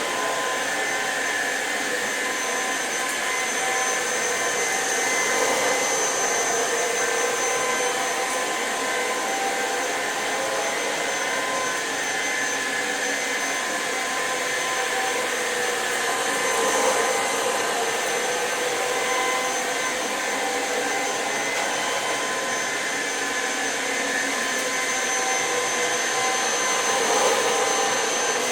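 Electrolux Pure F9 cordless stick vacuum running at full power while vacuuming: a steady motor and airflow rush with a high whine over it, swelling slightly a few times.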